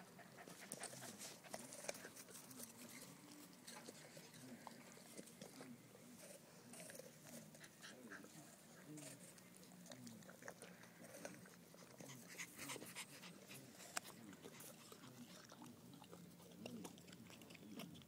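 A Rottweiler chewing an apple: faint, scattered crunches and clicks of its jaws, with a dog panting.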